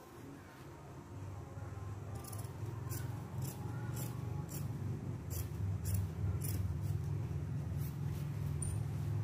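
Fabric scissors cutting cloth along paper pattern pieces, a crisp snip about every half second. A low hum underneath grows louder through the cut.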